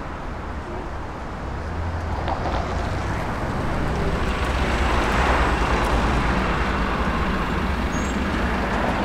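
City bus pulling in to a stop: a low engine rumble that grows louder and is loudest about halfway through, with a broad hiss around it.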